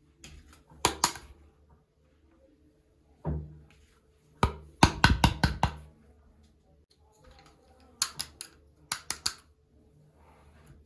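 Small plastic toy kitchen pieces being handled and set down: sharp clicks and taps in short clusters, with a dull knock about three seconds in and a quick run of clicks a little later.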